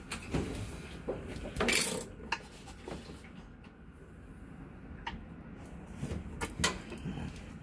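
A metal socket extension clinking and scraping inside the plastic agitator post of a top-load washer as the agitator bolt is worked. Scattered clicks and knocks, with a louder rattle about two seconds in.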